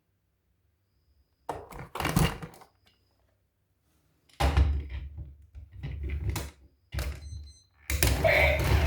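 Several knocks and clattering thuds in short clusters, with a low rumble under the later ones. Music starts near the end.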